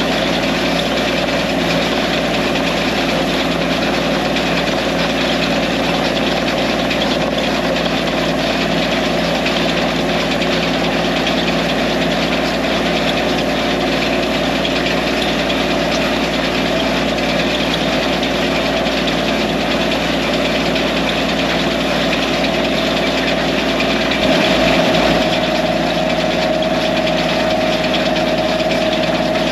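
Diesel tractor engine running steadily while it pulls and drives a rotary hay rake, an even mechanical drone. Near the end a higher tone in the engine steadies and the sound gets slightly louder.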